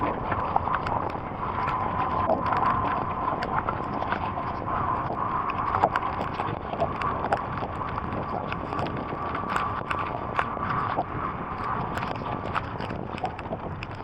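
Heavy rain falling, with many irregular sharp drop impacts on nearby surfaces over a steady hiss. A faint steady tone runs through most of it.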